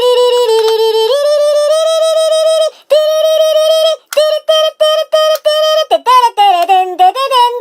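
A high, strongly pitched voice holding long steady notes for about four seconds, then breaking into short, rapid repeated notes that wobble and dip in pitch.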